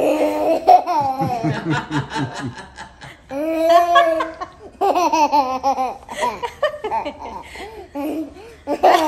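A toddler and a woman laughing together in repeated bursts.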